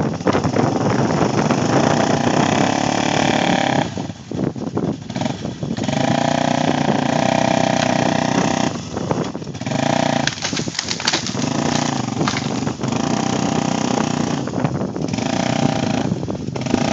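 Vehicle engine revving hard in repeated surges of a few seconds each, straining under load as it pulls on a rope tied to a tree.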